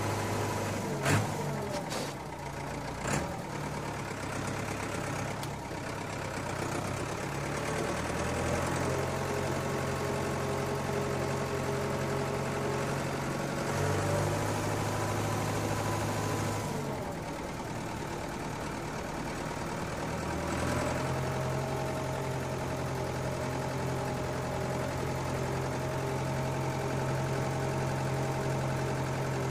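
Tractor engine idling steadily, its note stepping to a different pitch several times, with a few sharp clicks in the first few seconds.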